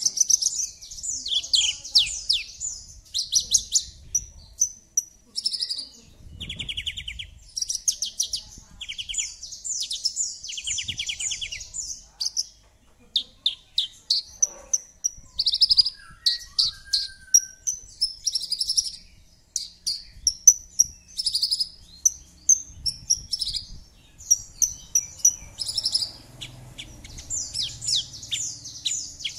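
Bush lark (branjangan, Mirafra javanica) singing a long, varied song of fast trills, chirps, buzzy runs and short whistles, with a brief pause about halfway.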